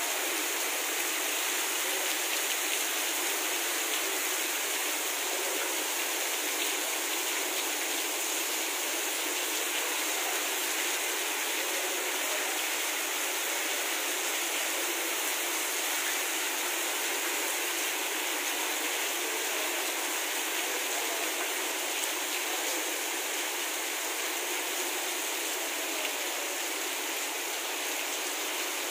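Heavy rain pouring down steadily on water-covered ground, an even hiss that does not let up.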